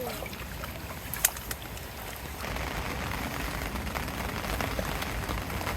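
Steady rain falling as an even hiss, getting heavier about two and a half seconds in, with one sharp tap a little over a second in.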